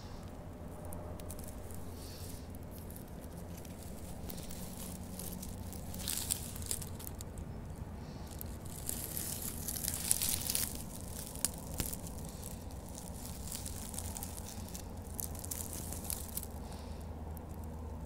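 Rustling and crackling of dry pine needles, with sharp clicks in short spells about six seconds in and again from about nine to twelve seconds in, over a low steady rumble.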